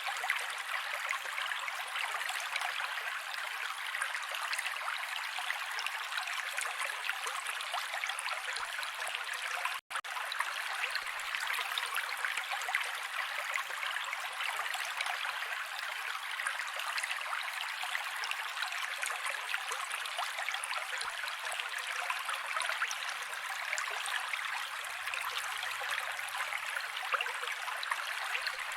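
Mountain creek water flowing steadily, with a split-second gap about ten seconds in.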